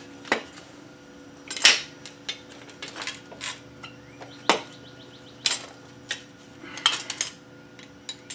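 Metal hand tools and drum-brake parts clinking and clanking on a concrete floor as they are handled, picked up and set down: about a dozen sharp, irregular knocks, the loudest a little under two seconds in.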